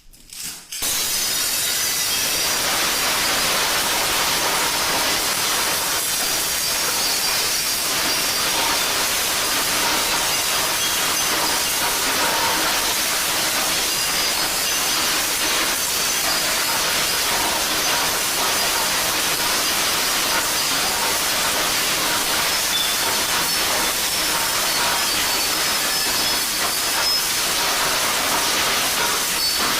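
Steady dense hiss with fine crackling throughout, starting abruptly about a second in.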